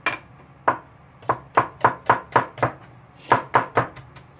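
Kitchen knife chopping vegetables on a cutting board: about a dozen sharp knocks, mostly about four a second, in two runs with a short pause between.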